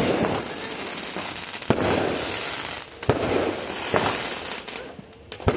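Fireworks going off: several sharp bangs about every one to two seconds, with a constant crackle and hiss between them.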